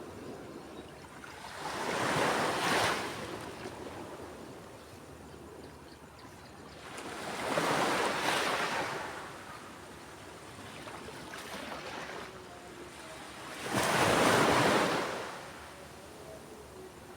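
Ocean waves breaking on a beach, three in a row about six seconds apart, each swelling up and washing out over a steady surf hiss.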